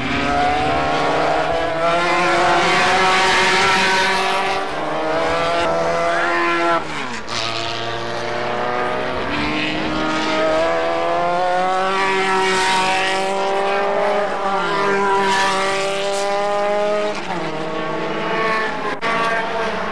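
Formula Renault single-seater race cars running at full throttle. The engine pitch climbs through the gears, then drops steeply as they brake and downshift, about seven seconds in and again near the end.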